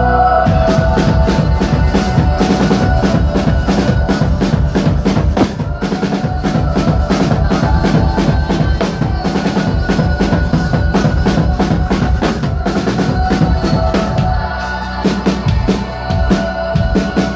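Live band music: a drum kit comes in about half a second in with a rapid, even beat over sustained synthesizer chords. The drums thin out for a moment near the end, then pick up again.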